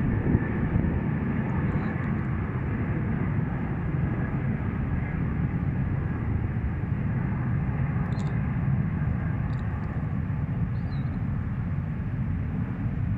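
Steady low rumble of a jet airliner flying overhead.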